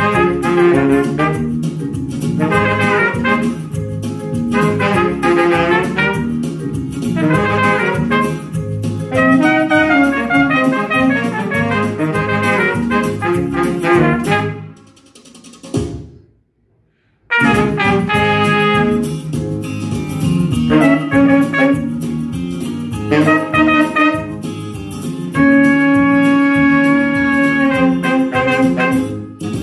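Tenor saxophone and trumpet playing a lively duet over a backing track with drums. The music stops dead for about two seconds midway, then resumes, and ends on a long held note.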